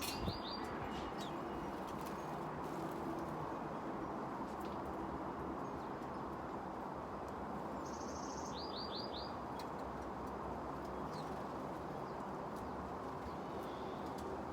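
Steady wind noise, with a small songbird calling twice: a short run of four quick high notes right at the start and again about nine seconds in.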